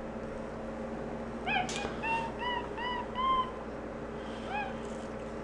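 Capuchin monkey peeping: a quick run of five or six short, high, arched chirps, with one more near the end, over a faint steady hum.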